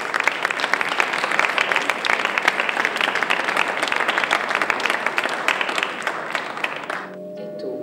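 Audience applauding, a dense clapping that fades about seven seconds in as a few sustained musical notes begin.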